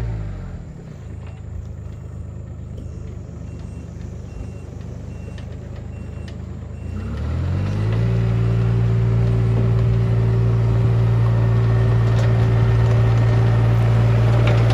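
Mini excavator's diesel engine dropping from high throttle to idle at the start, idling for about seven seconds, then revving back up to a steady high speed and holding there. A faint repeated beep sounds while it idles.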